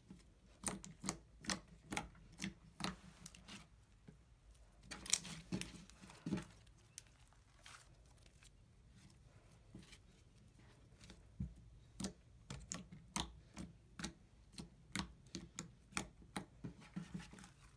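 Yellow butter slime being stretched, folded and pressed by hand, giving a string of small sharp pops and clicks, with a lull of a few seconds midway.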